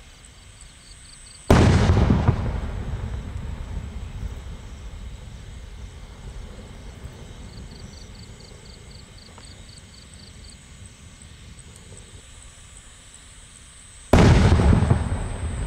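Two aerial firework shells bursting about twelve seconds apart, the second near the end: each a sudden loud boom followed by a long rolling echo that fades away over several seconds.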